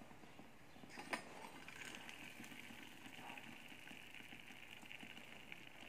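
A single light knock about a second in, then the faint steady hiss of a small steel pot of water simmering on a miniature stove around a foil-covered dish.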